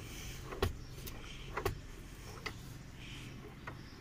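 Volkswagen Polo's front centre armrest being tilted up and down, its hinge ratchet giving a handful of light clicks as it passes through its adjustment positions.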